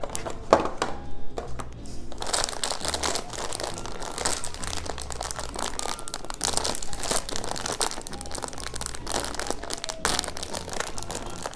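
Crinkly plastic snack pouch rustling and crackling continuously as it is handled and pulled open, after a few sharp clicks from a cardboard box being opened in the first two seconds.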